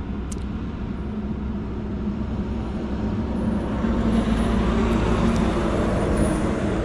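Road traffic: a steady low hum, with a passing vehicle growing louder from about halfway through and staying loud almost to the end.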